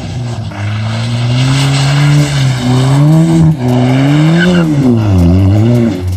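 Ford Fiesta ST's turbocharged engine revving up and down as the car skids in snow, its pitch rising and falling several times with short dips as the throttle comes off and on.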